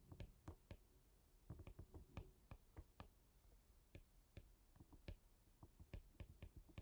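Faint, irregular clicks and taps of a stylus tip on an iPad's glass screen during handwriting, several a second.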